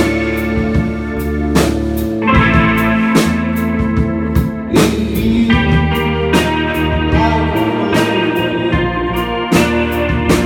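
Live band playing an instrumental passage of a song: sustained guitar and keyboard chords over steady drum and cymbal hits, with no singing.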